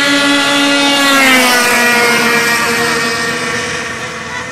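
Racing snowmobiles passing at speed: a high, steady engine note whose pitch drops about a second in as the sleds go by, then fades away.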